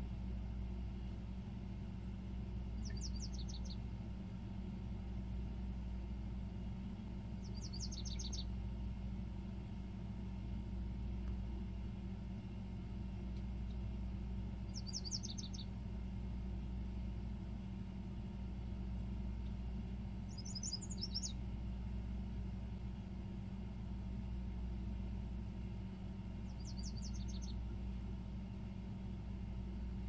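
A songbird sings five short phrases, about six seconds apart. Each phrase is a quick run of high notes falling in pitch. A steady low rumble runs underneath.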